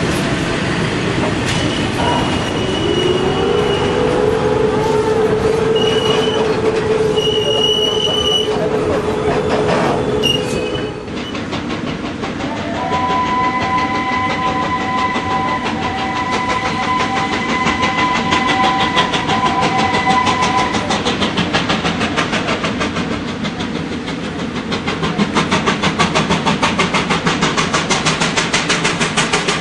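Electric locomotives running past with a long steady high tone. Then a steam locomotive whistle sounds for about eight seconds, and near the end the rapid, regular exhaust beats of a South African Railways Class 15F steam locomotive working hard grow louder.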